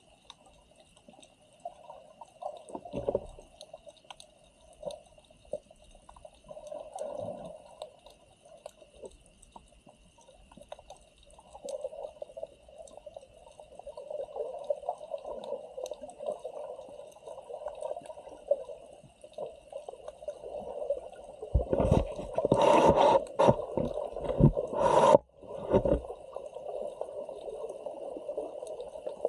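Muffled water sounds from a camera in the sea: gurgling and sloshing over a faint steady high whine, with a run of loud splashes and knocks from about 22 to 26 seconds in.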